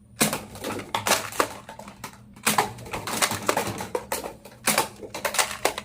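Plastic toy guns being handled: a run of irregular clicks and clatters.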